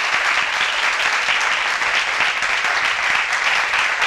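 Audience applauding steadily: many people clapping at the end of a lecture.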